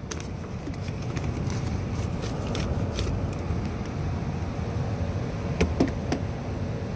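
Papers crinkling and rustling as a stack of papers is handled and pulled out of a car's glove box, with scattered sharp crackles, over a steady low rumble.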